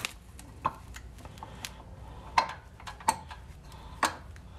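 Scattered sharp metal clicks and taps, about five in four seconds, as the new oil pump with its pickup screen is handled up into place against the underside of a small block Chevy 350.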